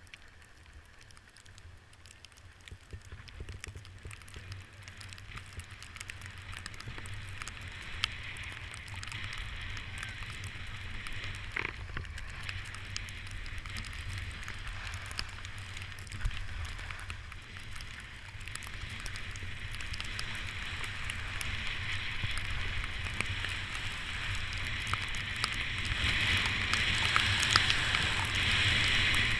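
Snowboard sliding and scraping over snow: a crackling hiss that grows steadily louder as speed builds, over a low wind rumble on the microphone.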